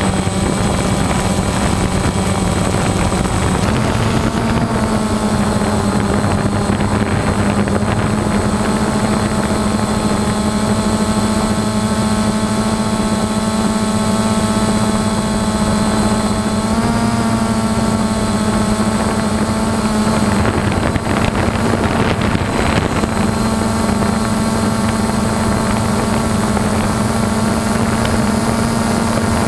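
Drone motors and propellers running close to the camera, a steady buzzing whine whose pitch steps up a little about four seconds in and shifts slightly a few more times as the drone climbs.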